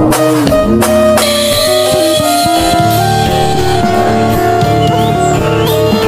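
Background music with guitar.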